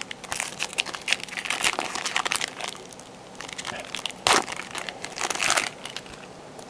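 Foil wrapper of a Topps Chrome football card pack crinkling and tearing as it is pulled open by hand, in bursts of crackle with one sharp loud crackle a little past the middle.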